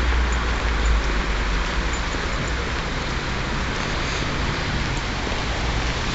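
Steady outdoor background noise: an even hiss over a low, wavering rumble.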